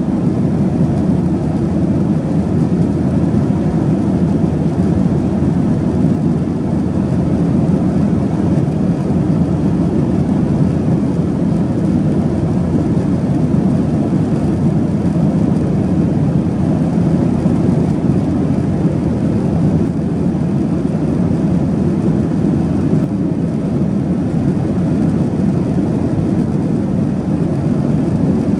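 Steady, unchanging roar heard inside the cabin of a Boeing 737-800, from its CFM56-7B turbofan engines.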